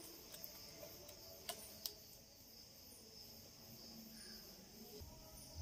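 Near silence: faint steady room hiss, with two faint clicks about a second and a half in.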